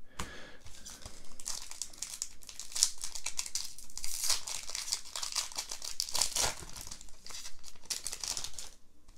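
Foil wrapper of a Pokémon card booster pack crinkling and tearing as it is peeled open by hand: a dense, crackly rustle that stops shortly before the end.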